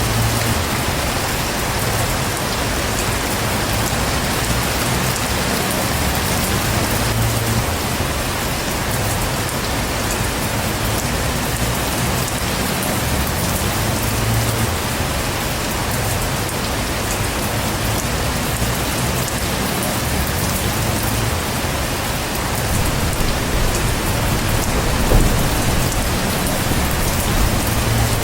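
Heavy rain pouring steadily, with low rumbles of thunder swelling up now and then.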